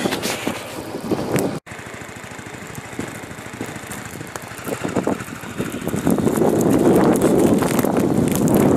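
Motorcycle riding noise: the engine running with wind rushing over the microphone. The sound breaks off abruptly about a second and a half in, comes back quieter, and grows louder again from about six seconds in.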